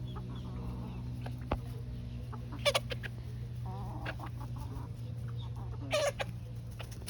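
Young hens about 21 weeks old clucking in short scattered calls, two of them louder, about a third of the way in and near the end, over a steady low hum.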